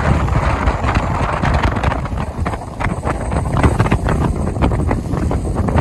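Heavy wind buffeting the microphone aboard a small fibreglass boat running through choppy water, with many short knocks and slaps of the hull on the chop.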